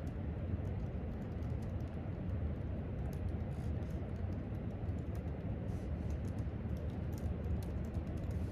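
Typing on a laptop keyboard: quick, irregular key clicks over a steady low rumble of room background noise.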